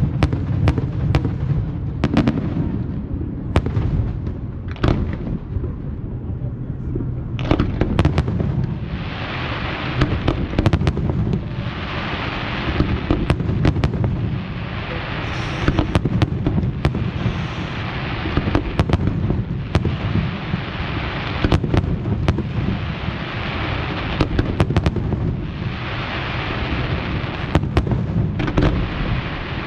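Fireworks display: a continuous barrage of booms and sharp bangs over a low rumble. From about eight seconds in, a dense crackling hiss joins in waves, the sound of crackle shells.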